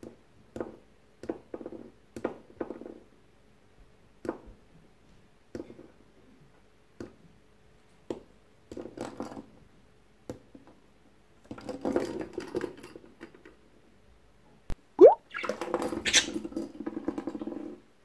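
Budgie playing with a small hollow plastic ball on the cage floor: irregular light taps and knocks as the ball is nudged and rolled over scattered seed, with busier rattling stretches later on and a short rising squeak about three-quarters of the way through.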